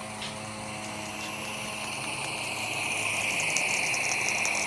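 Live-steam garden-scale geared logging locomotive running past, its steam hiss growing steadily louder as it approaches, with quick exhaust chuffs from about three seconds in.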